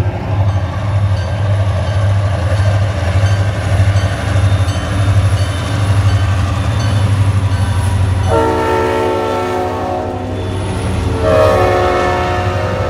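Diesel freight locomotives passing close with a heavy, pulsing engine rumble, then freight cars rolling by on the rails. The locomotive's multi-note air horn sounds twice: a blast of about two seconds starting about eight seconds in, and another starting about a second after it ends and still going at the end.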